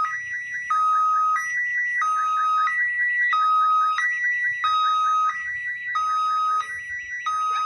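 Railway level crossing warning alarm sounding: an electronic two-tone signal that switches between a lower and a higher pitch about every two-thirds of a second, each tone with a fast warble.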